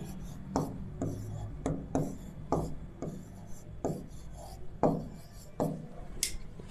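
A marker pen writing on a board: a series of short rubbing strokes, one every half second or so, as letters are drawn.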